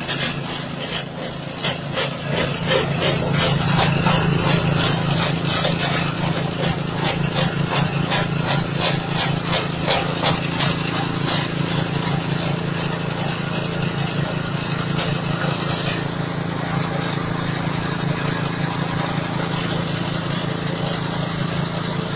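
Rice-straw chopper and grinder driven by a 6.5 hp engine, running steadily with dense crackling as material is fed and shredded. The crackling eases after about twelve seconds while the engine and machine keep running.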